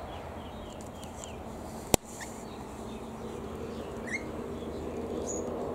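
Aviary birds giving short, scattered chirps, with one sharp click about two seconds in. A low, steady drone builds up from about three seconds in.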